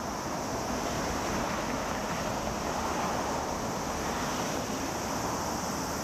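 Steady outdoor city noise, mainly the continuous roar of road traffic, with a steady high hiss above it and no separate events.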